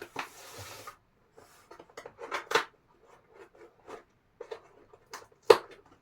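Cardboard and plastic packaging of a military ration being opened by hand: a tearing rush for about the first second, then irregular rustling and crackling, with a sharp snap about five and a half seconds in.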